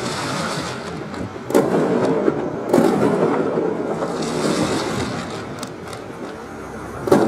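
Fireworks exploding, slowed to half speed: a continuous low crackle and rumble with separate bangs about a second and a half in and near three seconds, softer ones later, and the loudest bang at the very end.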